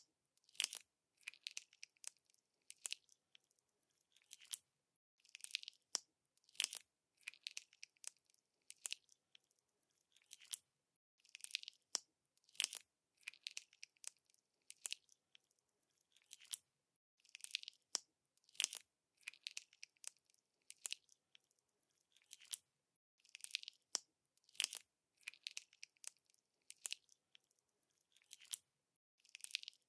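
Colourful slime with glitter-coated balls mixed in, squeezed, stretched and folded by hand, making sticky clicks, crackles and small pops in clusters about once a second.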